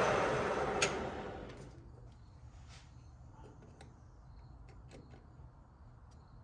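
Metal lathe switched off, its motor and spindle winding down to a stop over about a second and a half, followed by a few faint light clicks.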